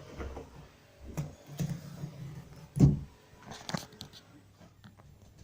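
A soundproofing box being handled and set down over a cage: a few knocks and scrapes, with one heavier thump about halfway through.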